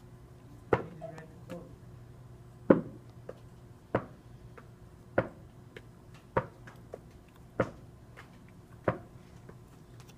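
A tennis ball bounced repeatedly on a hard surface: seven sharp knocks evenly spaced about 1.2 s apart, each followed by a smaller tap, over a faint steady hum.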